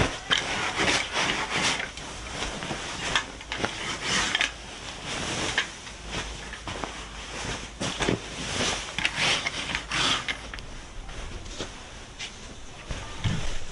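Pillows and bedding being handled: fabric rustling and rubbing, with soft irregular thumps as pillows are shaken and dropped onto the bed.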